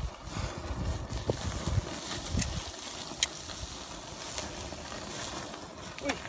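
Wind buffeting the microphone over the faint sizzle of pork grilling on a wire grate above charcoal, with a few sharp clicks of metal tongs against the grate.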